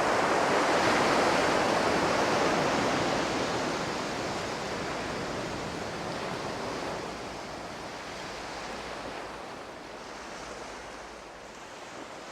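Steady rushing noise of ocean surf, mixed with wind, fading slowly away.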